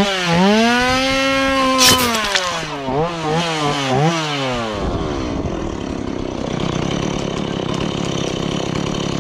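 Gas chainsaw engine revved up and down several times, then dropping back to a steady idle about five seconds in. A single sharp snap about two seconds in.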